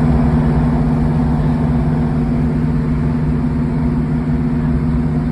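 Class 150 Sprinter diesel multiple unit's Cummins six-cylinder diesel engines running steadily, a constant deep drone with no change in pitch.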